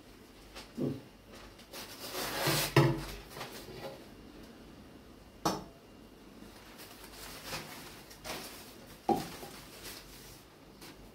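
Metal dishes and a steel cup clinking and knocking against a glass tank as it is cleaned out by hand: scattered knocks, a burst of clatter about two to three seconds in, and sharp clicks about five and a half and nine seconds in.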